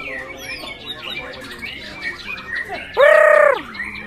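White-rumped shama (murai batu) singing a busy stream of short chirps and quick whistled sweeps. About three seconds in, a loud held note with a falling tail lasts about half a second.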